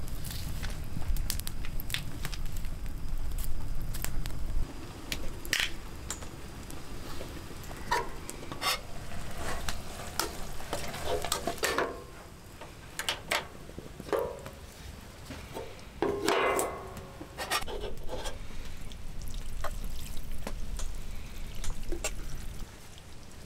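Cooking utensils clinking and scraping against a pan on a camp gas stove, many short knocks with a few longer clattering scrapes, ending with food being served from the pan into a bowl. A low rumble fills the first few seconds.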